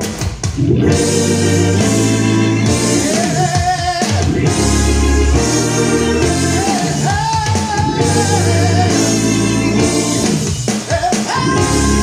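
Royalty-free library music with a singing voice over organ, drums and a deep, sustained bass line, played as a sound test through a Marantz PM6007 integrated amplifier and floor-standing speakers.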